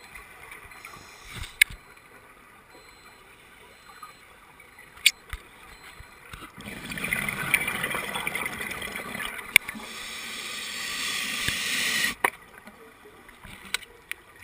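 Underwater sound through a camera housing: a few sharp clicks, and a loud rushing, bubbling water noise that starts about six and a half seconds in and cuts off suddenly about five seconds later.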